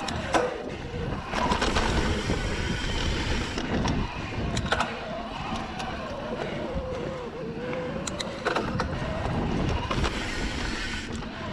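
Mountain bike, the Santa Cruz Heckler e-MTB, ridden along a dirt singletrack: tyres rolling on packed dirt with wind on the microphone. A thin whine from the mid-drive motor rises and falls with the pedalling. Sharp clicks and rattles from the bike come over bumps, strongest a couple of seconds in and again near the end.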